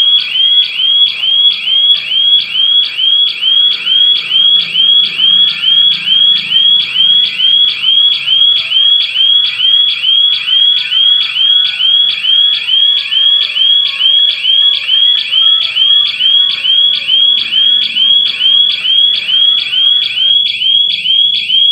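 Electronic siren of a triggered burglar alarm sounding continuously: a high, rising chirp repeated evenly a little over two times a second, the system's signal that a security breach has been detected.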